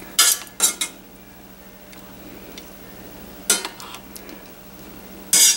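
Metal kitchen tongs clinking against a stainless steel cooking pot while green beans are fished out of the water. The clinks come in three groups: a quick run of strikes at the start, one about three and a half seconds in, and one near the end.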